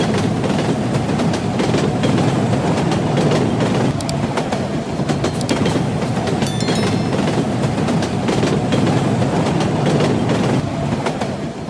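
Battery-powered toy steam locomotive pulling wagons along a plastic track: a steady rattling run full of fine clicks, fading away near the end.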